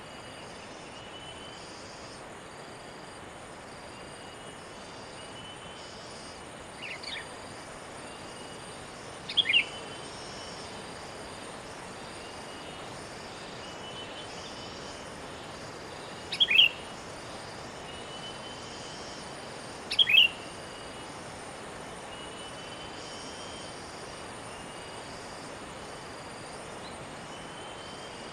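Sooty-headed bulbuls calling: a few loud, short, sharp calls that drop in pitch, each a quick double note, four times at irregular gaps. Fainter birds chirp steadily over a constant high hiss of insects.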